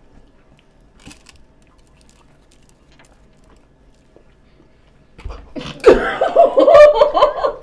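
A few faint clicks, then about five seconds in a woman breaks into loud laughter that runs for a couple of seconds.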